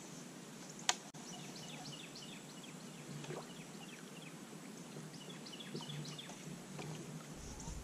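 Quiet riverside ambience with small birds chirping over and over, and one sharp click about a second in.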